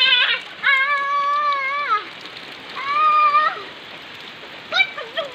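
A young child squealing with glee in high-pitched, drawn-out calls, one long and one shorter, then a few short cries near the end, over steady rain.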